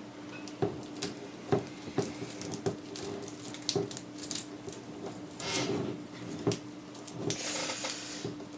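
Hands handling a new computer power supply and its cables: scattered light clicks and knocks, with two short rustles about halfway and near the end, over a steady low hum.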